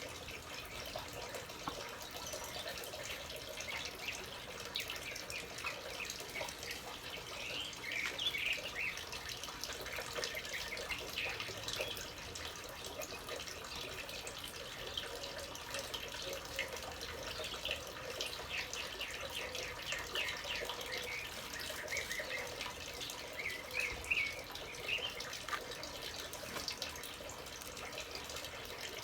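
Small birds chirping in short bursts of calls, twice, over a steady rushing hiss.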